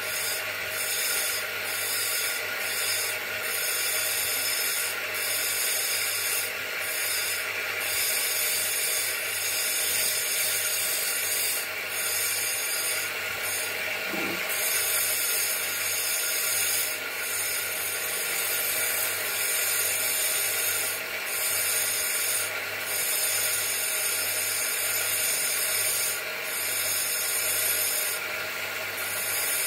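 Bench grinder motor running steadily while a small nagasui agate stone is held against its spinning wheel, giving a continuous grinding rub. The grinding noise swells and eases in short irregular spells as the stone is pressed on and shifted.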